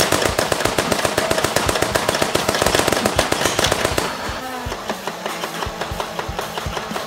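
Nerf HyperFire Elite flywheel blaster firing fully automatic: a rapid stream of clicks as darts are fed over a steady motor whine. It drops to quieter, sparser clicks from about four seconds in.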